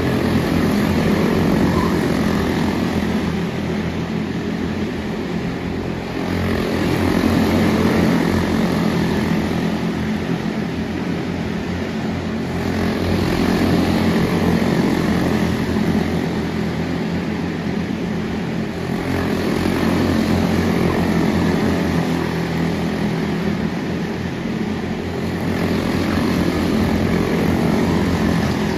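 Quarter midget race cars' Briggs & Stratton Animal single-cylinder engines running at racing speed around the oval, with the sound swelling and fading about every six seconds as the cars come round each lap.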